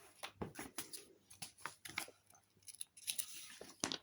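Small plastic Lego bricks clicking and clattering as they are handled and pressed into place, with a brief rustle about three seconds in and a sharper click near the end.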